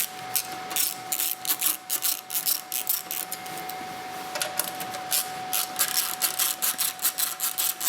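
A screwdriver backing out the screws that hold the cover of an IBM 3590 tape drive: quick, irregular runs of small metallic clicks and scrapes, in two spells with a short pause about halfway through.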